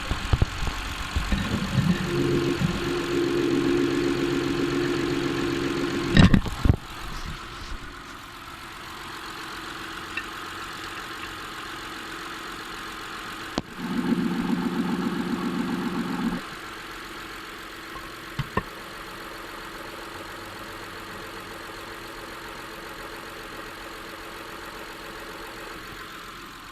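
Honda J35A9 V6 engine idling steadily with its timing-belt drive exposed, carrying a noise that the owner traces to the water pump or the belt tensioner pulley and cannot pin down. Twice the sound swells for a few seconds into a louder hum, and there is a sharp knock about six seconds in.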